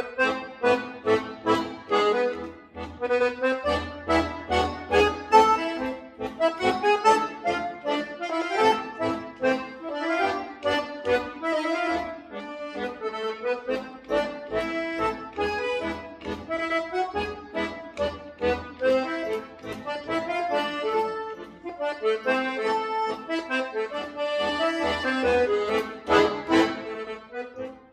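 Piano accordion played solo: a melody over chords, with low bass notes coming in and out and regular accented beats.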